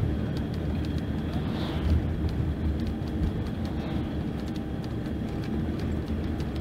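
Diesel engine of a Mercedes-Benz OC-500RF-1842 coach running steadily, a low drone with a few faint light clicks over it.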